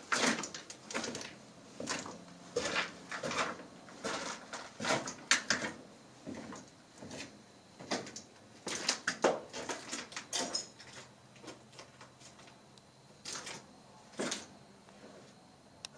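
Footsteps scuffing and crunching over rubble on a decayed stairway and floor: irregular sharp steps, busier for the first ten seconds and then fewer and further apart.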